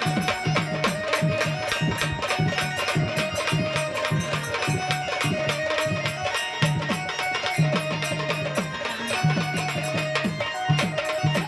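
Instrumental stretch of Marathi devotional folk music: a fast, steady hand-drum rhythm with a held melodic line over it, no singing.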